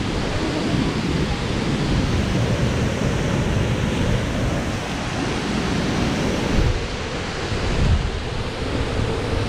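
A large waterfall's steady rushing, with wind buffeting the microphone in a low, uneven rumble that swells briefly a couple of times near the end.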